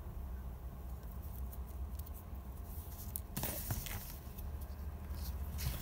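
Needle and silk thread drawn through linen fabric in an embroidery hoop, with hands rubbing the cloth: a few short scratchy rustles, the clearest about three and a half seconds in and near the end, over a steady low hum.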